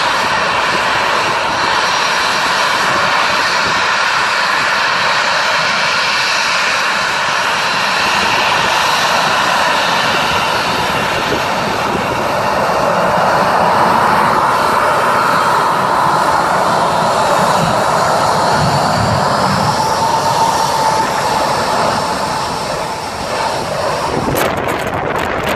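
Twin CFM56-7B turbofans of a Boeing 737-700 running on the runway: loud, steady jet noise with a high fan whine. Near the end, as the engines face the microphone, the exhaust blast buffets it with rough wind noise.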